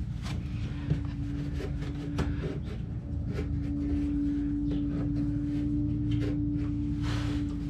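Light clicks, taps and knocks of parts being handled while working on a scooter's air filter and carburetor area, over a steady low background hum.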